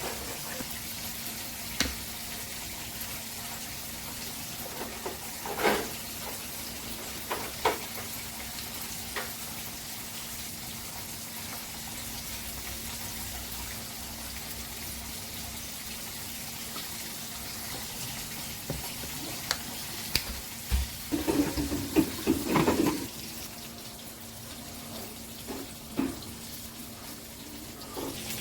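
Kitchen work sounds: a steady hiss with a faint low hum, broken by scattered light clinks and knocks, and a busier clatter a little past two-thirds of the way through.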